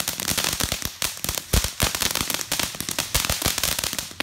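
Ground fountain firework crackling, a dense run of rapid sharp cracks and pops that cuts off abruptly at the very end.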